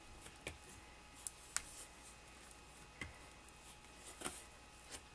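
Faint, scattered squeaks and taps of bare hands rubbing adhesive onto a styrofoam form, about six in all, over a faint steady room hum.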